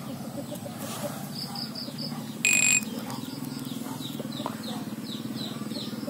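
A single short, steady electronic beep from a Nokia E71 phone about two and a half seconds in, the loudest sound here. Behind it, faint high chirps from wildlife and a low steady hum.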